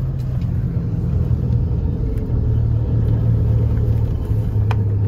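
Steady low rumble of a car driving slowly, heard from inside the cabin, with a low engine hum. A brief click sounds near the end.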